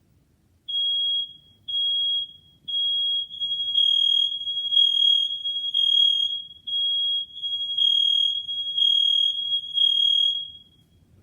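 Household smoke alarm sounding on its test button: a loud, high single-pitched beep repeating about once a second. From about four seconds in the beeps run together and grow louder, and they stop about ten and a half seconds in.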